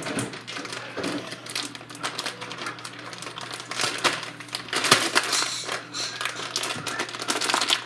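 Plastic cheese wrapper crinkling and crackling in quick irregular clicks as hands struggle to pull it open, busiest about four to five seconds in.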